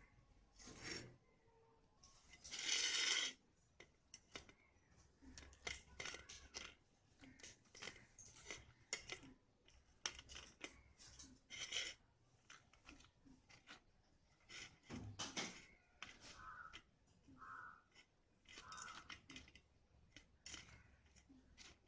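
Quiet, scattered clinks and light scrapes of cooked vadas and utensils being handled on a stainless steel plate, with one louder scraping noise about three seconds in.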